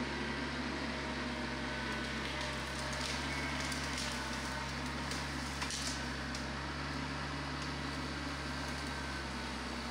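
Tractor diesel engine running steadily, with a few light clicks and rattles about three to six seconds in.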